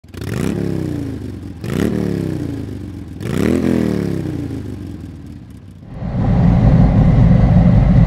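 Motorcycle engine revved three times, each rev rising quickly in pitch and dying away slowly. From about six seconds in it gives way to a steady, louder low rumble.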